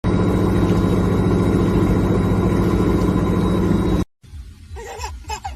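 A loud, steady motor drone with a constant hum that cuts off suddenly about four seconds in, followed by a baby's short voiced sounds near the end.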